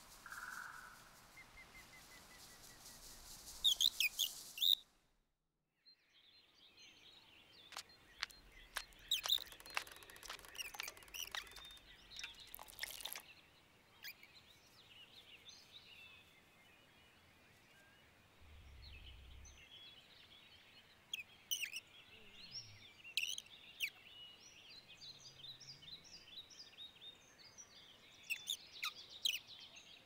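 Small birds chirping and tweeting in quick, scattered calls, broken by a short silent gap about five seconds in.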